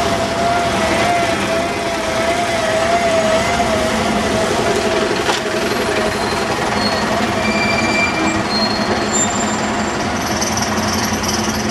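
City-centre street traffic, with single-deck buses driving past. A wavering whine runs through the first half.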